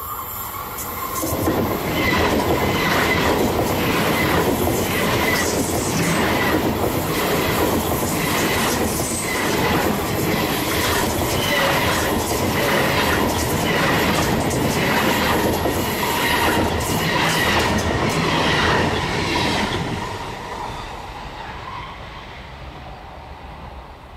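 SBB double-deck passenger train passing close by on electrified track: a loud rumble of wheels on rail with a regular clatter of wheelsets over the rail joints, about one to two clicks a second. It fades away over the last few seconds.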